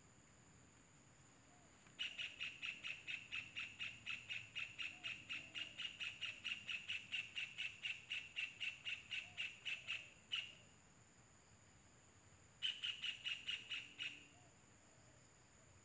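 Kingfisher calling a rapid series of short, sharp chirps, about four a second, for about eight seconds; it pauses, then calls a shorter run of about six.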